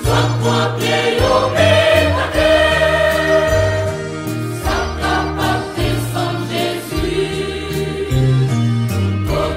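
Gospel choir singing in parts over instrumental backing, with a low bass line moving from note to note and regular drum beats.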